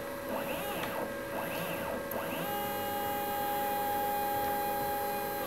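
Milling machine table driven by its motor, traversing the vise under a dial test indicator to check the vise's alignment. It makes a few short moves, each a whine that rises and then falls in pitch, then from about halfway a steady whine as the table travels at constant speed.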